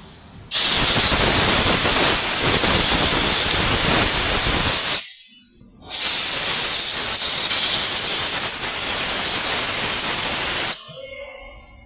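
Compressed-air blow gun hissing loudly in two long blasts of about four and five seconds, with a short break between, as it blows out an electrical wiring connector.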